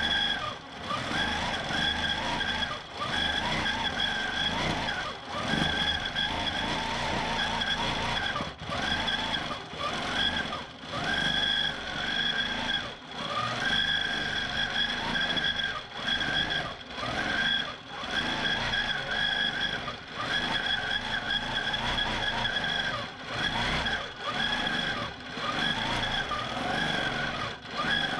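Q'nique 19 longarm quilting machine stitching in stitch-regulated mode: a steady motor whine and needle chatter that stops briefly every second or two as the machine head pauses and starts again.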